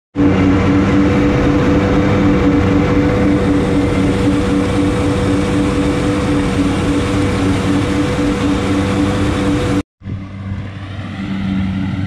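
Rice combine harvester's engine running steadily close by: a loud, even drone with a pulsing hum. It drops out for a moment near the end, then continues quieter.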